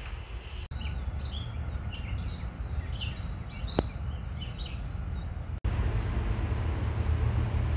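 Songbirds chirping and singing in quick, short calls over a steady low rumble, with one sharp click about four seconds in. The birdsong breaks off about five and a half seconds in and the low rumble grows louder.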